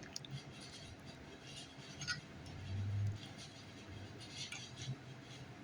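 Faint kitchen handling sounds: a few light clinks, like utensils or dishes touched together, with a short low hum a little under halfway through.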